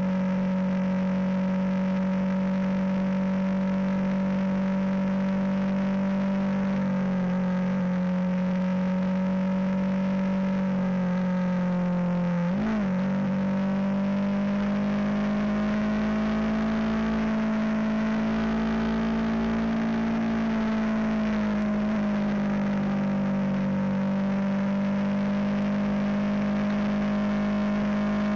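Motorcycle engine running at cruising speed, heard through a camera mounted on the bike: a steady droning note whose pitch briefly dips and recovers about halfway through, then rises and falls gently with the throttle. Low wind rumble on the microphone grows in the second half.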